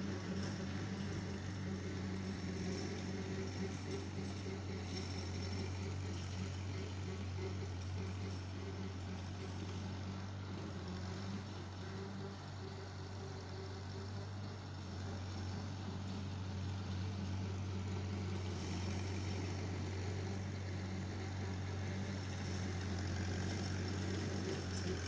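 Massey-Harris 22 tractor's four-cylinder engine running steadily as it drives across a field, the sound dropping a little around the middle as the tractor moves farther off and coming back up near the end.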